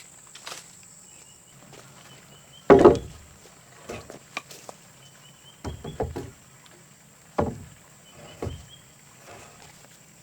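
A series of irregular thumps and knocks, the loudest about three seconds in, with faint short high chirps between them.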